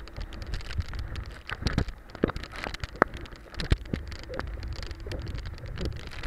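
Sea spray and splashing water pelting an action camera on a towed banana boat, with wind buffeting the microphone: irregular sharp crackling taps over a steady low rumble.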